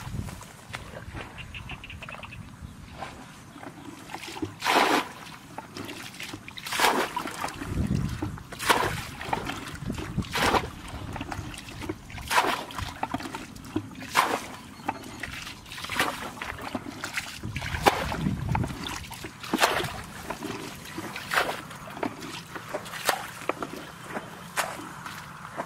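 A bucket scooping and throwing out muddy water from a shallow ditch, a splash and slosh about every two seconds as the ditch is bailed. There are heavier pours about a third of the way in and again past the middle.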